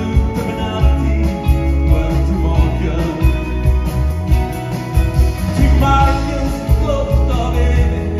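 Live rock band playing a song: electric guitars, bass and drums in a steady beat, with a voice singing over them.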